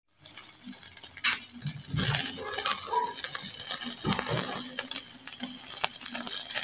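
Pork sizzling on a charcoal grill: a steady hiss with many small irregular crackles and pops as the fat cooks over the coals.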